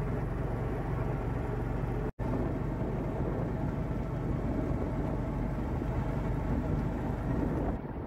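Utility vehicle (a ranch 'mule' side-by-side) running steadily as it drives over pasture, its engine hum mixed with driving noise. The sound cuts out for a moment about two seconds in, then carries on.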